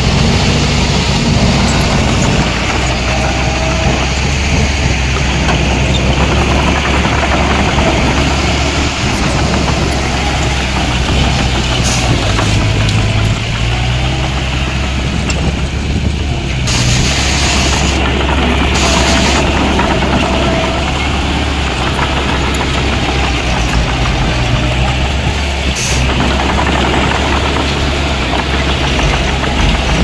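Heavy diesel engine of earthmoving machinery running steadily, with a low, even engine note. A few brief, sharper noises come through, about halfway in and again near the end.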